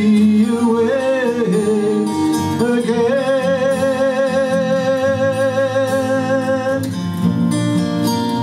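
Live acoustic country song: a man sings the closing word, holding one long note with vibrato, over two strummed acoustic guitars. The voice stops about seven seconds in and the guitars play on alone.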